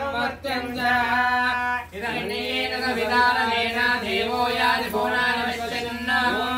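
Sung devotional mantra chanting: voices hold long, drawn-out notes in a slow melody.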